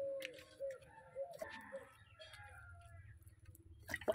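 A bird calls in short, repeated, low arching notes, several in the first second and a half, followed by fainter higher chirps. Near the end comes one louder sudden wet slap, from hands working wet mud into a clay stove.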